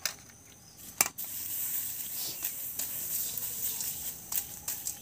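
Dried chickpeas being stirred through hot sand in an iron wok with a bundle of thin sticks, for sand-roasting: a sharp knock about a second in, then steady gritty scraping with many small ticks of sand and grains against the iron.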